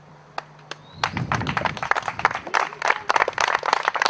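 A small crowd clapping, beginning about a second in after a short lull with a couple of lone claps.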